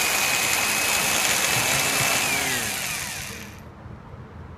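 Electric drill running at speed, drilling a hole through the plastic door-latch housing. About two seconds in the motor is released and winds down, its whine falling in pitch and dying away by about three and a half seconds in.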